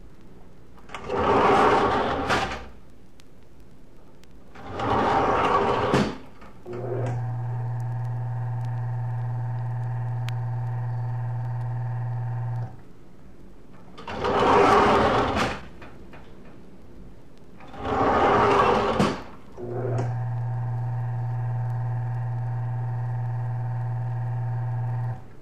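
Old elevator sound effect: pairs of loud scraping, rattling slides of the elevator gate, then the car's motor running with a steady low hum for about six seconds before stopping. The cycle of two gate slides and a motor run happens twice.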